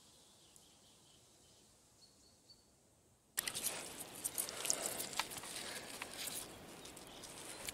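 Faint outdoor quiet, then about three seconds in, close rustling and many sharp clicks begin as hands untangle a fine monofilament fishing net over the side of an inflatable boat.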